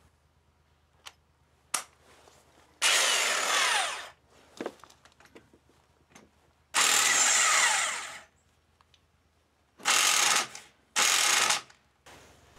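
Impact wrench run in four bursts of about a second each, tightening a nut on the engine's clutch side; the last two bursts come close together. Small clicks of tool handling fall between the bursts.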